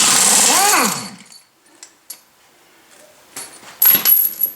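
Impact wrench hammering for about a second as it spins a tractor lug nut off, its motor pitch rising and then falling away. A few light clinks and knocks follow as the loosened nut is handled.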